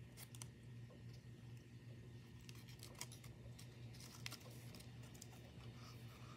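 Faint crinkling and ticking of folded white paper handled in the fingers, a few scattered crackles over a low steady hum.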